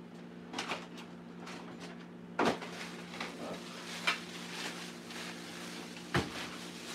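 Rummaging in a freezer: frozen packages and freezer shelves being shifted and knocked, a few clunks and clatters with sharper ones about two and a half seconds in and near the end, over a steady low hum.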